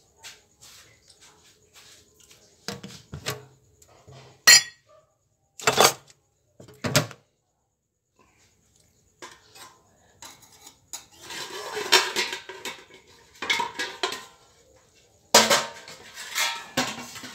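Metal spatula and lid knocking against a steel wok: a few sharp, separate clanks, then a denser stretch of scraping and clattering in the second half as the vegetables in the wok are turned.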